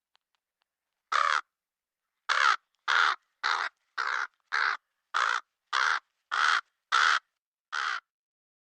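Crow cawing: a single caw, then after a short pause a steady run of ten caws, a little more than one a second.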